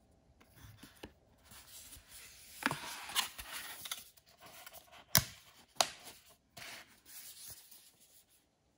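A cardboard box and its paper leaflet being handled: rustling and rubbing of card, broken by a few sharp taps and clicks, the loudest about five seconds in.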